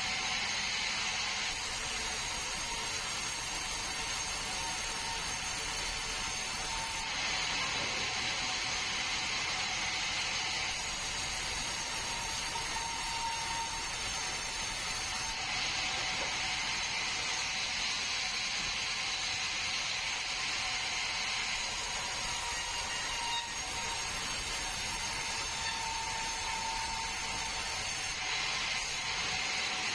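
Sawmill saw running through a bengkirai log, a steady mechanical whine and rasp that swells and eases every few seconds.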